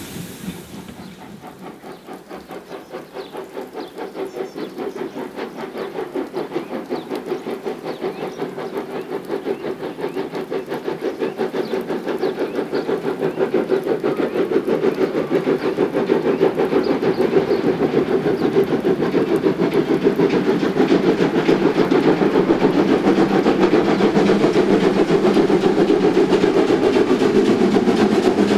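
Prussian T 18 tank locomotive 78 468 working hard up a steep grade: a steady rhythm of exhaust chuffs that grows louder as the engine draws nearer.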